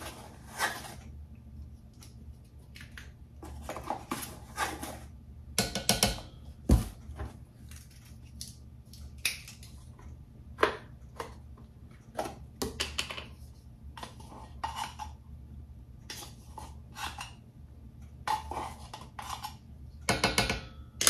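Metal measuring spoons clinking and tapping against a stainless steel mixing bowl and ingredient tins while dry leavening is spooned in: irregular light clicks and scrapes, with one sharper knock about six or seven seconds in. A faint steady low hum lies underneath.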